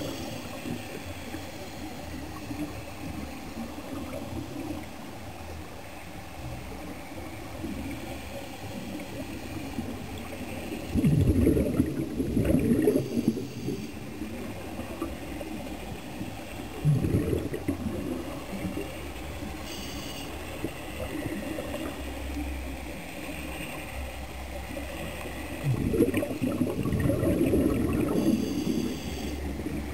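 Scuba regulator exhaust bubbles gurgling past the camera in bursts, with three long exhalations at about 11, 17 and 26 seconds in. Between them is a low, steady underwater rumble.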